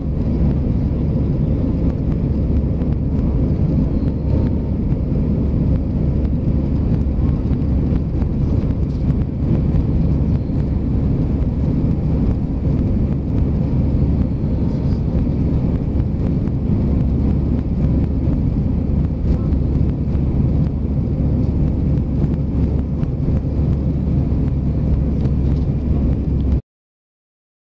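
Steady engine and airflow noise of an Airbus A320 in flight, heard inside the passenger cabin, with most of the sound low and rumbling. It cuts out abruptly to silence near the end.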